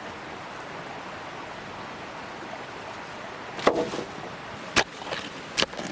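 A steady rushing noise, with three sharp knocks in the second half, each about a second apart.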